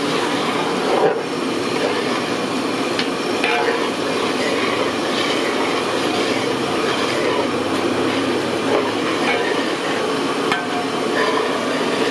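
A long metal ladle stirring and scraping through a large aluminium pot of simmering meat gravy, with scattered clinks and knocks of metal on metal over a steady hiss.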